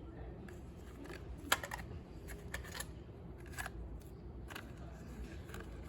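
A run of irregular light clicks and taps, about seven, the sharpest about one and a half seconds in: hand tools and small parts being handled during work on the scooter.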